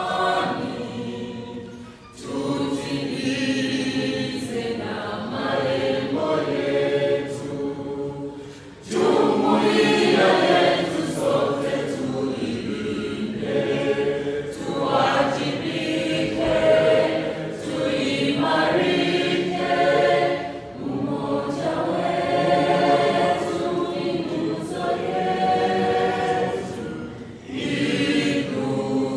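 A group of voices singing together in phrases, with short breaks between them. The singing comes in fuller and louder about nine seconds in.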